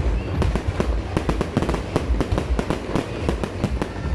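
Ground-fired fireworks barrage going off continuously, a rapid run of bangs and crackles, many a second, over a deep rumble.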